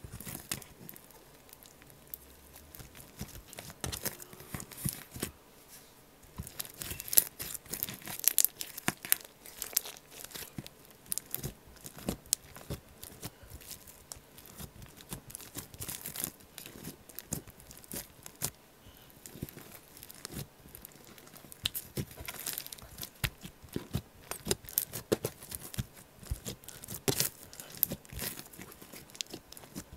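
Slime being squished, stretched and poked by hand, giving a continual run of irregular small clicks and pops.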